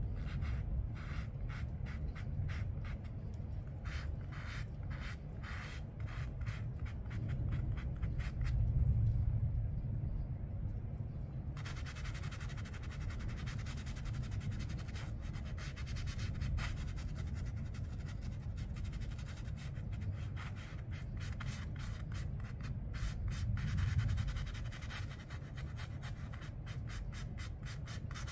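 Watercolour paintbrush stroking across paper in many short strokes, spaced out at first and coming thick and fast from about a third of the way in, over a steady low rumble.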